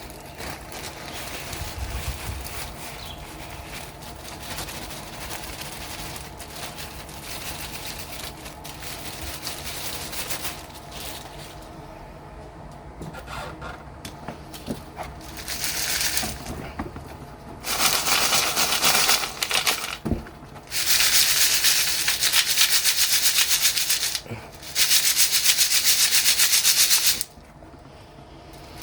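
Sapphire wash gravel being worked through a sieve, scraping and rattling, with three louder bursts of a few seconds each in the second half.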